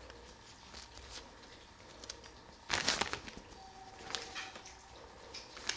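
A long paper till receipt rustling and crinkling as it is handled in the hand. The loudest burst comes about three seconds in, followed by a few lighter crackles.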